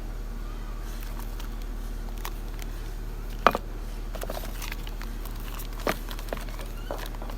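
A few sharp clicks and knocks from objects being handled, the loudest about three and a half seconds in and another near six seconds, over a steady low hum.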